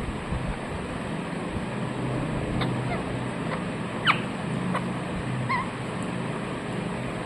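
A ringneck parrot giving a few short, soft chirps, one a quick two-note call, over a steady background hum.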